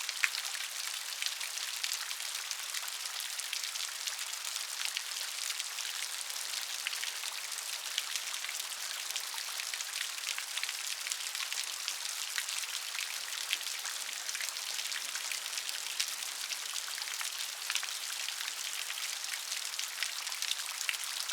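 Rain falling off a roof: a steady, dense patter of drops striking a hard surface, with a sharper single drip tick just after the start.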